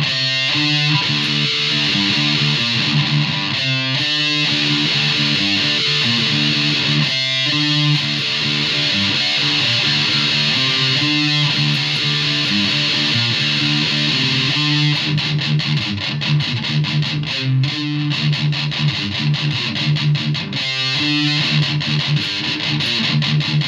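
Distorted electric guitar playing a heavy metal riff; about fifteen seconds in it turns to fast, rhythmic chugging.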